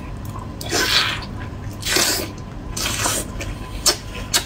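Wet eating sounds from lobster meat soaked in dipping sauce: three loud slurps about a second apart, then a few sharp wet mouth clicks near the end.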